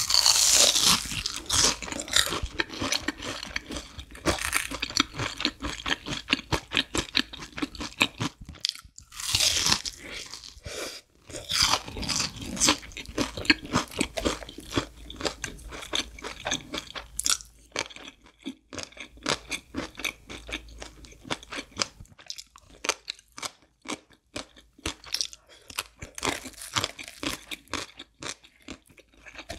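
Close-miked crunching and chewing of a breaded, deep-fried pork cutlet, with loud crisp bites at the start and again about nine seconds in. Near the end comes the crunch of pickled radish.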